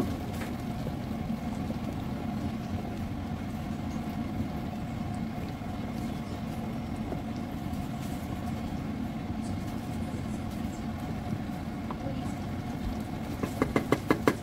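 Steady low kitchen rumble and hum around a pot of thick sauce being stirred with a wooden spoon. About a second before the end comes a quick run of about eight knocks as the wooden spoon strikes the aluminium pot.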